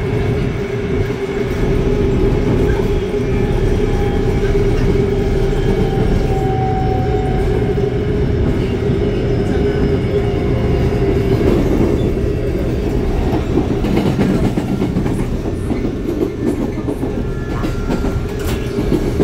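Korail Line 4 electric train with Alstom traction equipment cruising, heard from inside the car: a steady running rumble with an even hum, and wheels clacking over rail joints a few times in the second half.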